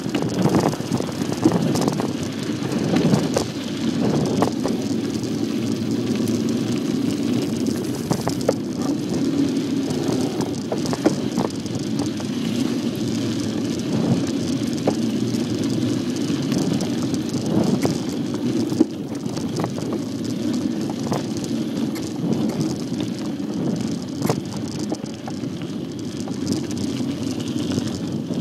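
Bicycle riding over a dirt forest trail: a steady rumble of tyres on the rough ground, with frequent rattles and knocks from the bike jolting over bumps.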